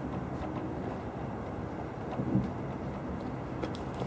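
Distant fireworks: a muffled boom about two seconds in, and faint crackling of bursting stars early and again near the end, over a steady low rumble.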